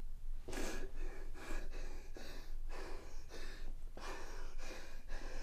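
A young man breathing fast and hard in short gasping breaths, about two a second: hyperventilating in a panic attack.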